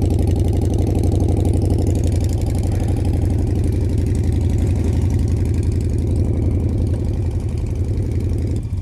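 Motorcycle engines idling, a steady low, evenly pulsing hum; the sound drops a little near the end.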